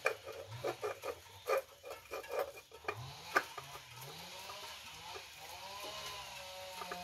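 A run of small clicks and knocks, as of hands handling tools and parts. From about three seconds in comes a steady pitched sound of several tones that waver slightly up and down.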